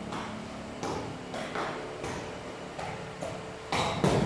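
Takraw ball being kicked back and forth, heard as a few sharp smacks spaced unevenly, echoing in a bare hall, with two close together near the end.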